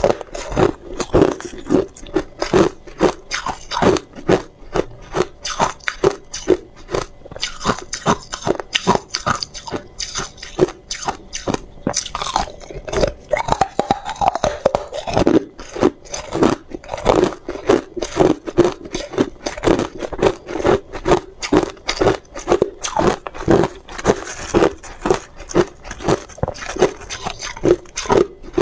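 Hard ice cubes bitten and chewed close to a lapel microphone: a steady run of sharp crunches, two or three a second.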